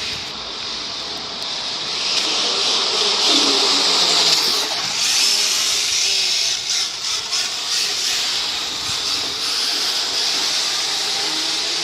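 Radio-controlled model Mk2 Escort car running with a high, buzzing whine, which grows louder about two seconds in and then holds steady.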